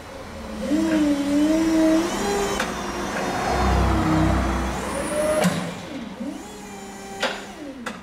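Forklift driving and raising a collection container on its forks: a motor whine that wavers up and down in pitch over a low rumble, with two sharp clanks about five and seven seconds in.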